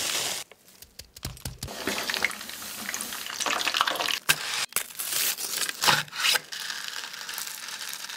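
A short rush of breadcrumbs pouring onto a ham-and-cheese stack, then steady crisp crackling and crunching from the golden deep-fried breadcrumb crust, with a few sharp cracks.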